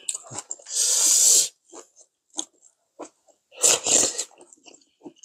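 Loud slurps of soup from a spoon, one about a second in and a second one near four seconds, with a few small clicks between them.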